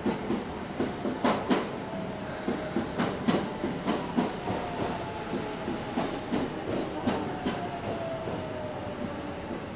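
Train wheels clacking irregularly over rail joints, two or three clacks a second, over steady running noise. A faint whine slowly falls in pitch through the second half.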